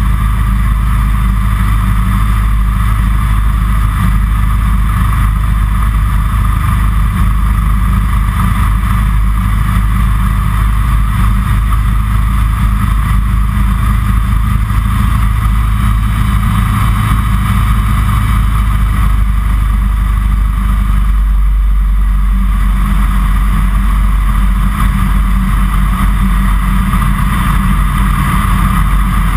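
Kitfox Series 5 light aircraft's engine and propeller droning steadily, heard from inside the cockpit in flight. The deep part of the hum thins a little about two-thirds of the way through.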